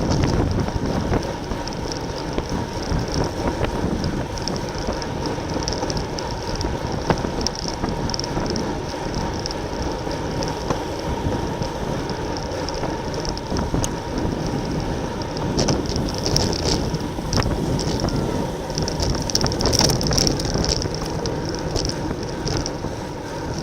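Wind rushing over the microphone of a camera on a moving racing bicycle, with steady road noise from the bike.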